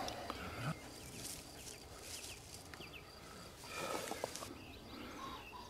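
Quiet open-field ambience with a few short, faint bird chirps, and a brief soft noise about four seconds in.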